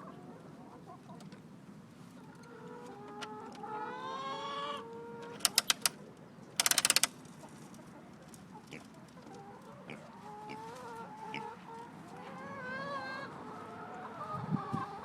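Chickens and roosters clucking, in several pitched calls. A few sharp clicks midway are followed by a short rapid rattle of clicks, louder than the birds.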